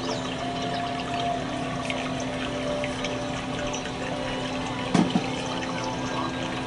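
Oatmeal simmering in a saucepan: a steady run of small bubbles popping, with one louder plop about five seconds in.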